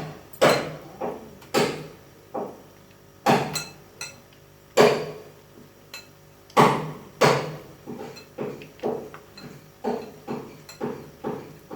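A metal utensil repeatedly knocking against a cooking pot, about twenty uneven strikes, each with a short ring. The strikes are louder in the first half and softer toward the end.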